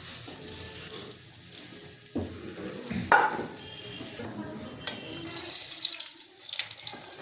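Puli frying in hot oil: a steady sizzling hiss with crackles, with two sharp knocks of a utensil about three and five seconds in.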